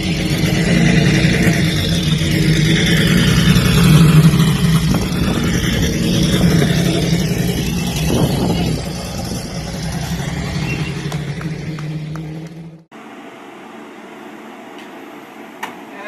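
A custom car's engine running loud as the car turns and pulls away, with some revving, then cut off abruptly about three-quarters of the way through. A much quieter steady hum follows.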